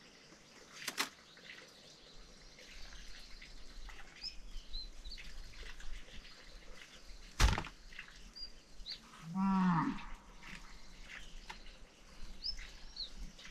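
A farm animal calls once for about a second, about two-thirds of the way through. Two sharp knocks, one about a second in and a louder one halfway through, and a few short high bird chirps.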